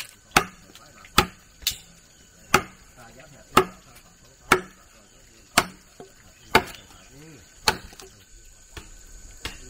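About ten sharp striking blows, roughly one a second, growing weaker near the end, over a steady high insect drone.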